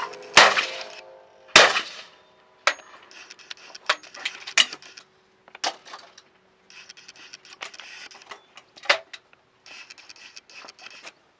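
Two shotgun shots about a second apart at released clays, then a few lighter clicks and knocks.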